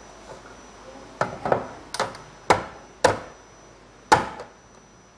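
Six sharp knocks on a tabletop, irregularly spaced about half a second to a second apart, starting about a second in, as items are handled and pressed on the table.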